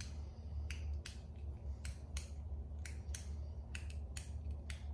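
A small handheld object being clicked: about a dozen short, sharp clicks at irregular intervals, over a low steady hum.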